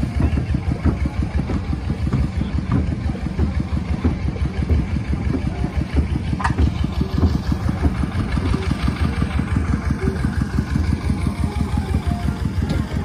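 An engine running steadily at idle, a low, even rumble. A single short tap is heard about six and a half seconds in.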